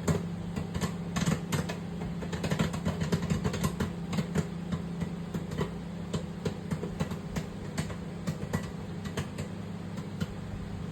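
Microwave popcorn popping in its bag inside a running microwave oven: irregular quick pops over the oven's steady hum.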